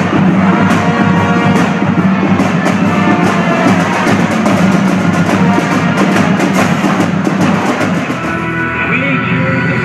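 Music with drums keeping a steady beat.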